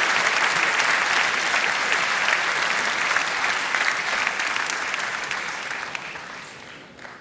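Large crowd applauding, dense clapping that thins out and fades away over the last couple of seconds.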